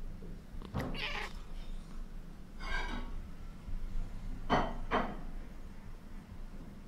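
British shorthair kitten making short hunting calls: four brief cries, the last two in quick succession.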